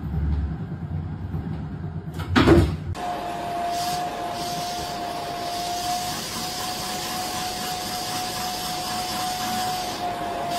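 Low rumble of a cat exercise wheel spinning, then a loud thump about two and a half seconds in. From about three seconds on, a vacuum cleaner runs steadily, a high-pitched whine over hiss, with its hose held to a cat's fur.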